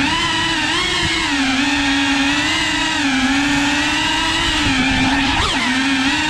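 Cinewhoop FPV drone's brushless motors and ducted propellers whining in flight: a steady buzzing tone that drifts up and down in pitch with the throttle, dipping and then rising sharply about five seconds in.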